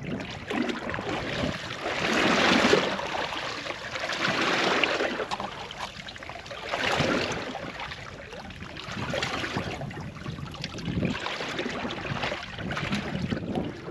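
Water sloshing and wind noise around a small fishing boat, a swishing noise that swells and fades every couple of seconds.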